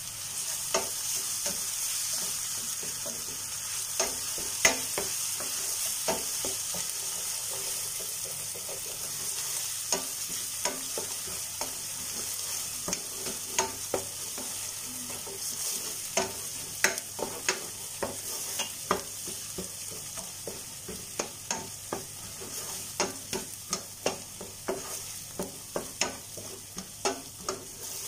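Chopped onions with crushed ginger and garlic sizzling in oil in a stainless steel pan, a steady frying hiss, while a wooden spatula stirs and scrapes, knocking against the pan; the knocks come more often, several a second, in the second half. This is the sauté that cooks off the raw smell of the ginger and garlic.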